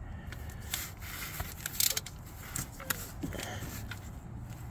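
Hand ratchet clicking in short, uneven strokes, with some metal scraping, as a transmission drain plug is snugged down until its crush washer compresses.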